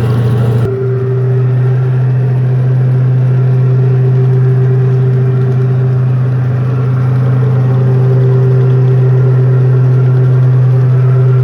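Scale RC M1A2 Abrams tank's sound unit playing a steady engine-running effect, an unbroken low hum.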